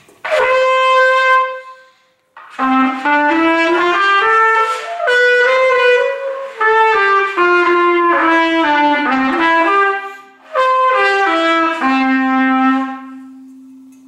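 Trumpet playing the D major scale in separate stepwise notes, climbing an octave and coming back down, after a short held note at the start. It ends on a long held low note.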